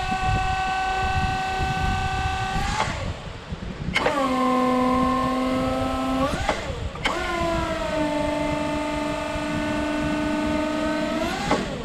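Electric hydraulic pump motor of a small 36-volt electric forklift whining in three separate runs of a few seconds each as the side-shifting carton clamp is worked. Each run dips in pitch as it starts, holds steady, then sweeps up in pitch as it cuts off.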